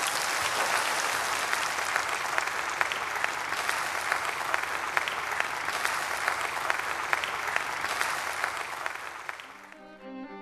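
A crowd applauding, a dense patter of many hands clapping that fades out near the end as music comes in.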